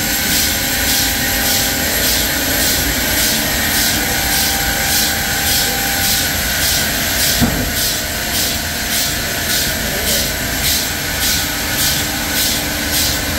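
Sawmill machinery running steadily, a loud mechanical drone with a regular high-pitched pulsing about twice a second. There is one short knock about halfway through.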